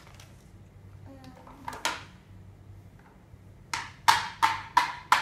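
Hard plastic toy dishes knocked and tapped together: one sharp clack about two seconds in, then a quick run of about five hollow, ringing clacks near the end.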